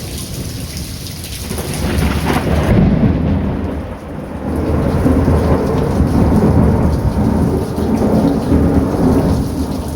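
Thunderstorm: steady heavy rain with long rolls of thunder that build about two seconds in and keep rumbling.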